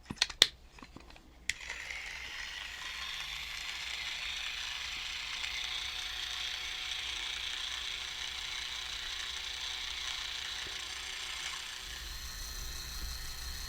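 Small electric motor of a Tamiya roller skating robot kit driving its freshly assembled, greased plastic gearbox: a steady gear whir that starts about a second and a half in, after a few clicks.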